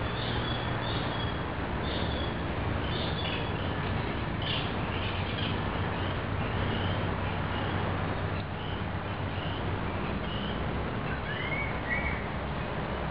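Bumble bee buzzing with a steady low hum while it moves about the flowers. Birds call over it: a run of short high chirps through the first half, then a two-note call near the end.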